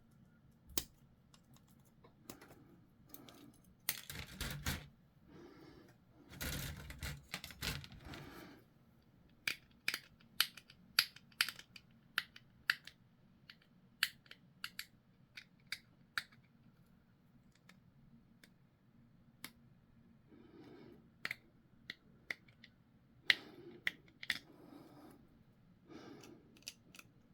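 Small plastic model-kit parts being handled on a table: two spells of rustling in the first third, then runs of sharp little clicks and taps of plastic pieces.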